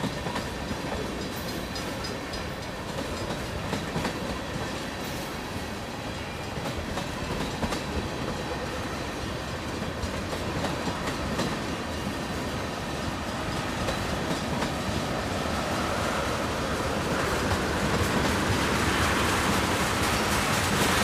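Freight cars of a Union Pacific manifest train rolling past, their wheels ticking over the rail joints in quick uneven beats. The rumble grows louder over the last few seconds.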